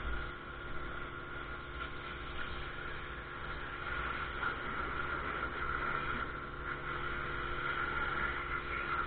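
Ryobi RY14122 electric pressure washer running steadily, its motor and pump whining with the water jet spraying.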